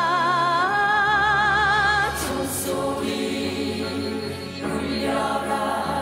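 A woman's solo voice holds a long sung note with vibrato, stepping up to a higher pitch just under a second in. About two seconds in it gives way to several voices singing together over musical accompaniment.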